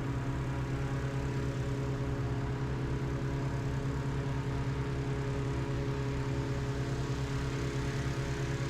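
An engine running steadily at a constant speed, with an even low throb.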